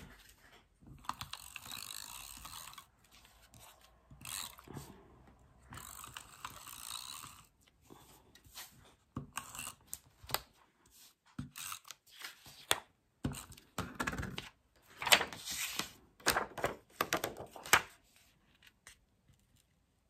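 Double-sided adhesive tape runner drawn across card stock in several long strokes, its spool gears ratcheting as the tape lays down. Short clicks and rustles follow as the paper pieces are handled and pressed together.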